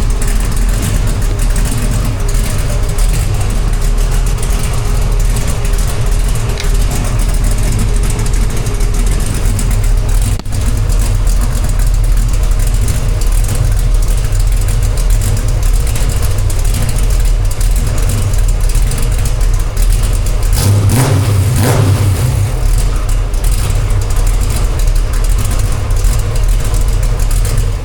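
1969 Chevrolet C10's 454 big-block V8 idling cold through a custom stainless exhaust with Flowmaster Flow FX glass-pack-style mufflers: a steady low rumble, not idling too smooth yet. The rumble swells briefly about 21 seconds in.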